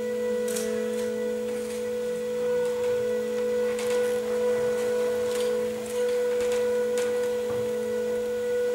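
A steady, unchanging musical drone of a few held pitches, with a low note under a stronger one and fainter overtones above, and a scattered light click or tap now and then.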